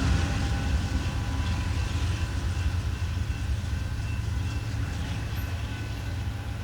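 Union Pacific rock train rolling past, a steady low rumble of wheels on the rails that slowly fades.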